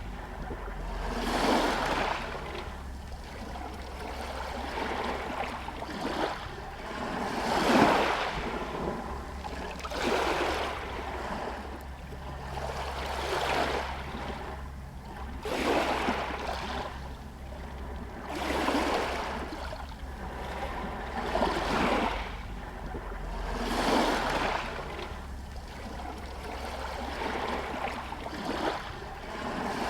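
Small sea waves washing against a harbour pier and stones, swelling in one soft surge every two to three seconds.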